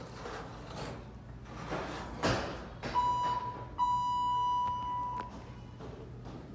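Elevator doors sliding, ending in a knock as they meet about two seconds in. Then an elevator's electronic beep sounds twice, a short tone and then a longer one of about a second and a half, steady in pitch.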